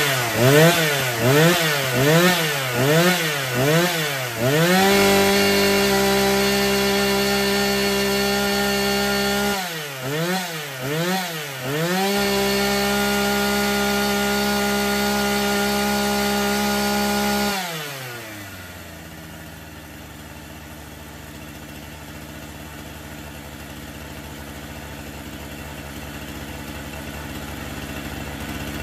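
Falcon 73cc two-stroke chainsaw engine running on test after repair: the throttle is blipped repeatedly, about seven quick revs in the first four seconds, then held at steady high revs, blipped three more times about ten seconds in and held high again. About 18 seconds in the revs fall and the saw settles to a quieter idle.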